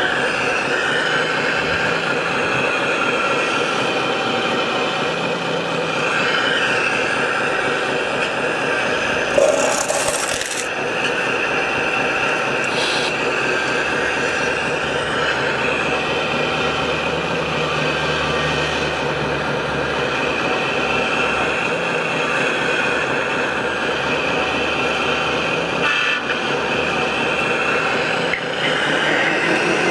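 Radio-controlled scale construction machines running: a steady whine and hum from their electric motors and hydraulic pumps, with a brief sharp knock about nine seconds in.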